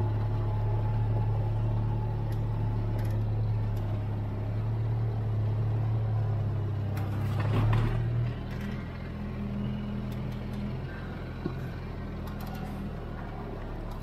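Side-by-side utility vehicle's engine running steadily as it drives along, easing off about eight seconds in.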